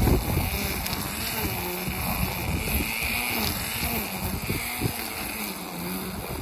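Wind buffeting the microphone, with a faint drone underneath that wavers up and down in pitch.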